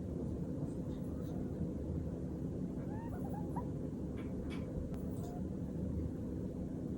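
Netherland Dwarf rabbit snoring in its sleep: a few faint, thin squeaks in the middle, over a steady low background hum.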